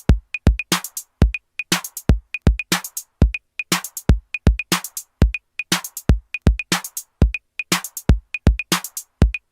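Electronic background music: a steady drum-machine beat of deep kicks and sharp snare-like hits, with short high blips between them.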